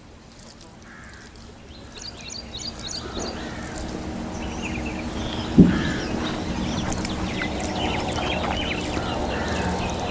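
Birds chirping and calling in quick short notes. Under them a steady low hum grows slowly louder from about three seconds in, and there is a single knock a little past halfway.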